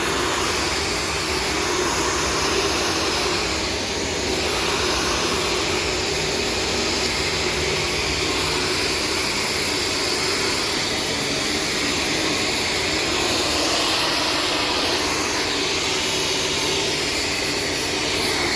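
Shark self-cleaning vacuum cleaner running steadily: an even motor and airflow whine that holds at one level throughout, with no breaks.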